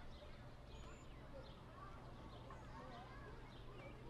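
Faint outdoor ambience through an open window: scattered short bird chirps and distant voices over a steady low rumble.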